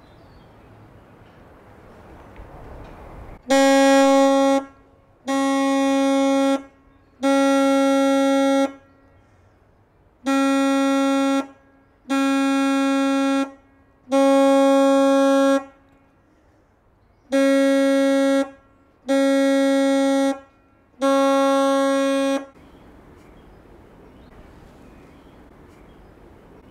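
Tower warden's copper horn blown from the church tower: nine long, steady blasts on one note, in three groups of three with short gaps between. The nine blasts sound the hour, nine o'clock, as the bells did just before.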